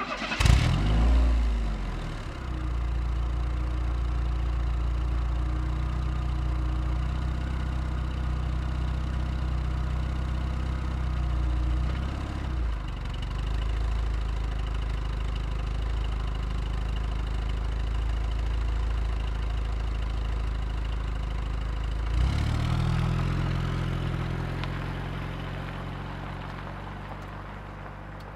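Car engine starting with a short rev in the first second or two, then idling steadily. About 22 seconds in it revs up briefly, then the sound fades out.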